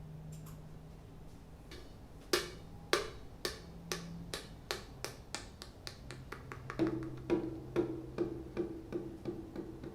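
Music played through Edifier S1000MKII active bookshelf speakers: a sparse percussive beat of sharp clicks, about two a second. About two-thirds of the way in, a low pitched note joins and pulses in time with the beat.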